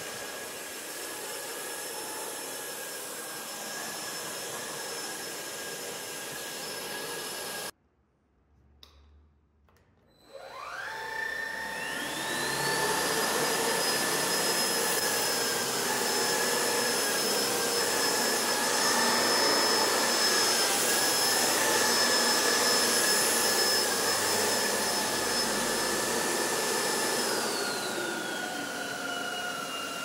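AEG Hygienic 5000 cordless stick vacuum running with a steady high motor whine. It cuts off abruptly about a third of the way in, and after a couple of seconds of near silence spins up again with a rising whine to a louder, higher-pitched run. Near the end its pitch steps down.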